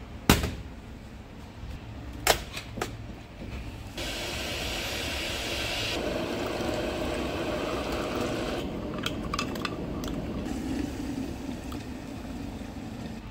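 Instant coffee being made in a ceramic mug: a few sharp clinks of spoon, jar and mug against each other early on, then liquid poured steadily into the mug, milk from a carton and then hot water from a kettle.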